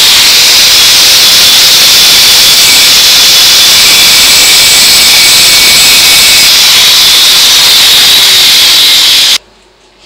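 Angle grinder running with its disc grinding the metal strip on a microwave magnetron's ceramic terminal plug: a loud, steady grinding noise that stops suddenly about nine seconds in.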